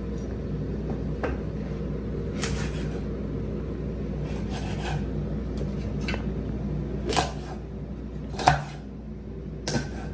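Large kitchen knife chopping roasted pork belly on a cutting board: irregular sharp knocks a second or so apart, the loudest about 7 and 8.5 seconds in, over a steady low background hum.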